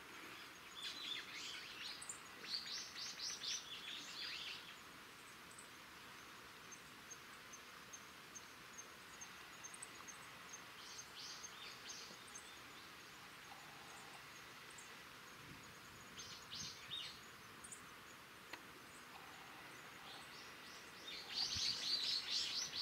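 Small birds chirping in several short bursts of quick high notes, the loudest burst near the end, over a faint steady outdoor background.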